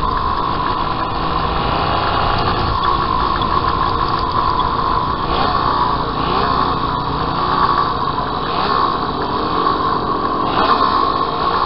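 Home-built three-cylinder engine of a 195cc Gillette special racing motorcycle running hard on track, its note rising and falling a little with the throttle.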